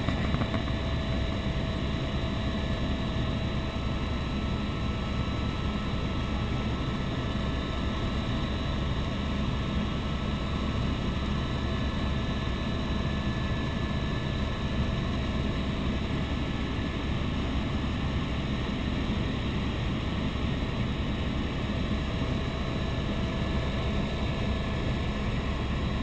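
Helicopter in steady cruise heard from inside the cabin: an even, unbroken drone of the turbine engine and rotor, heavy in the low end, with faint steady whine tones over it.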